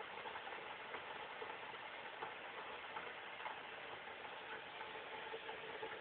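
Steady background hiss with a faint hum, and light, irregular clicks of a fingertip tapping the buttons of a touchscreen graphic LCD.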